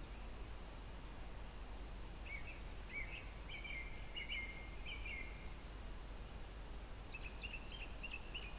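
A songbird singing in two runs of short chirping phrases, one from about two to five and a half seconds in and another starting near the end, over a steady low background rumble.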